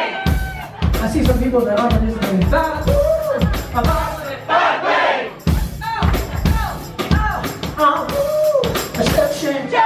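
Live rock band playing, with a drum kit beating steadily under electric guitar and keyboards, singing, and a crowd shouting along.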